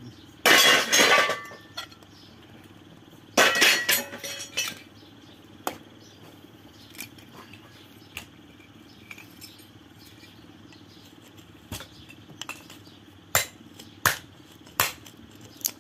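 Metal clanking and rattling from a scrap electric motor being taken apart with hand tools. Two loud bursts of clattering come about half a second in and about three and a half seconds in. After that come scattered sharp clicks and snips as cutters work at the stator's windings.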